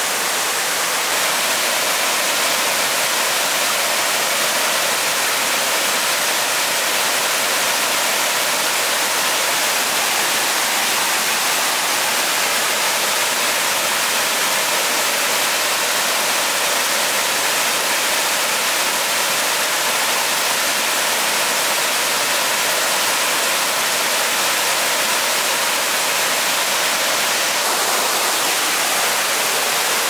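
Waterfall: a steady, unbroken rush of falling water, an even hiss with little deep rumble.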